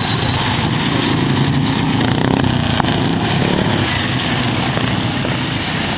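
Racing lawn mower engines running hard and steady at speed.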